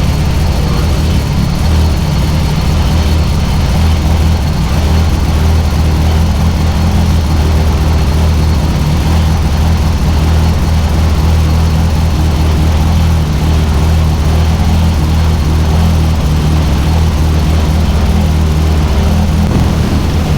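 Turbocharged car engine idling steadily.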